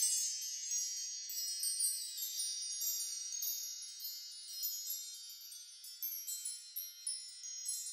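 Wind chimes ringing: a shimmer of many high tones that slowly fades as new notes keep sounding.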